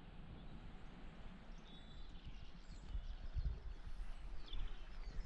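Wind buffeting the microphone in gusts, with small birds chirping and singing from about two seconds in.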